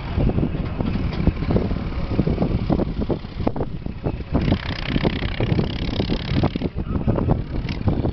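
Wind buffeting the camera microphone: a steady rumble with irregular thumps, and a brighter hiss rising for about two seconds near the middle.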